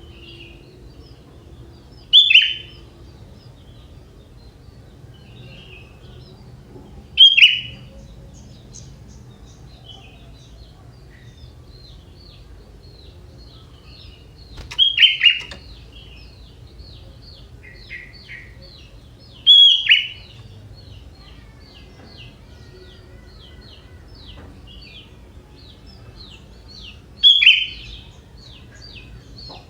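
Sooty-headed bulbul (kutilang) calling: five loud, short notes that slide downward, spaced several seconds apart. Between them runs a faint, quick series of short high notes.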